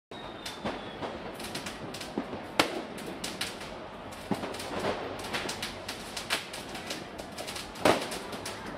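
New Year's Eve fireworks and firecrackers going off all over a city, heard at a distance as a dense, continuous crackle broken by frequent sharp bangs. The loudest bangs come about two and a half seconds in and near the end.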